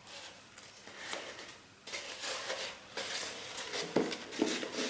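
Crepe paper rustling and crinkling as it is handled on a paper cone, with a light knock about four seconds in as the cone is set down upright on a wooden table.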